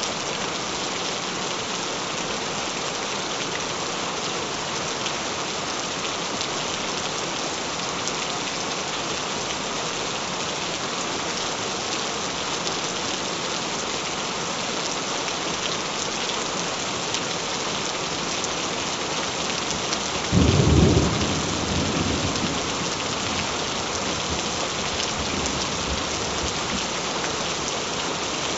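Steady rain falling on a surface, with one rumble of thunder about two-thirds of the way through that breaks in suddenly and fades over a couple of seconds.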